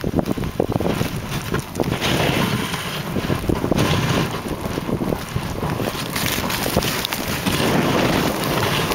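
Dog sled moving over a snowy trail: runners hissing and scraping on the snow, with frequent knocks and rattles as the sled bumps along, and wind buffeting the microphone.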